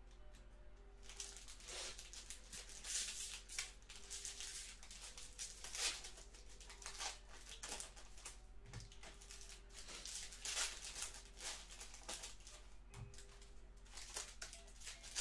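Trading-card pack wrappers being torn open and crinkled by hand, in a run of crackly rustles that come and go.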